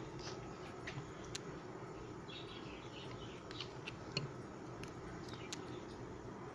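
Quiet background with a low steady hum, over which faint short high chirps and small sharp clicks come scattered and irregular, several a second at times.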